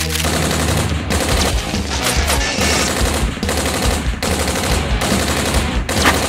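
Rapid automatic gunfire in bursts of about a second each, over background music with a steady bass.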